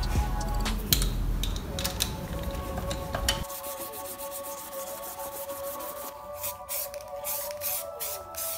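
Hand sanding of a metal engine cover plate with an abrasive pad: a run of short rubbing strokes in the second half, over background music.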